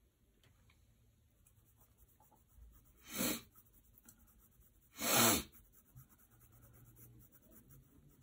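Two short, loud bursts of breath about two seconds apart, with faint graphite pencil scratching on sketch paper around them.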